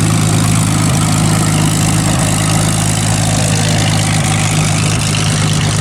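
A large engine running steadily at idle: a loud, even low hum that holds without change.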